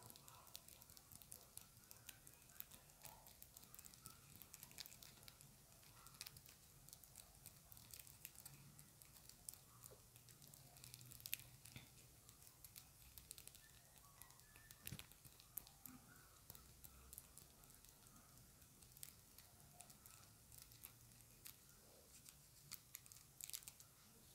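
Long acrylic fingernails tapping quickly on a small round hard object: a fast, irregular run of faint clicks.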